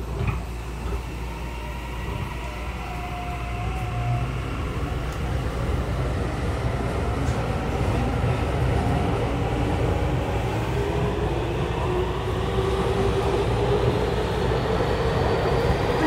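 Tokyu 5080 series electric train heard from inside the car, pulling away: the VVVF inverter and traction motor whine climbs steadily in pitch as the train gathers speed. The rumble of the wheels grows louder with it.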